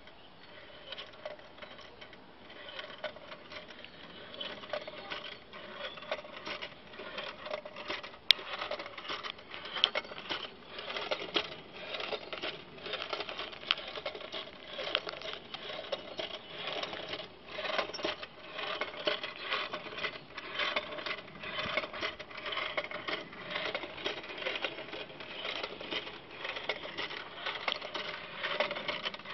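Hand-cranked automaton of driftwood and recycled metal clattering as its crank is turned: a fast, continuous rattle of small clicks from the mechanism, with one sharp click about eight seconds in.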